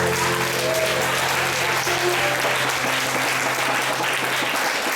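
Audience applauding as the band's last low note rings out, the note stopping about four and a half seconds in.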